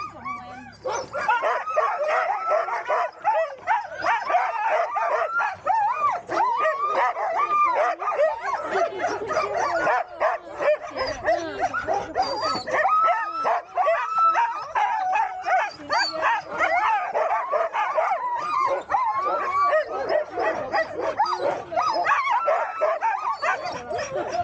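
Many sled dogs barking and yelping at once, a dense din of overlapping calls with no break. It starts about a second in and eases off near the end.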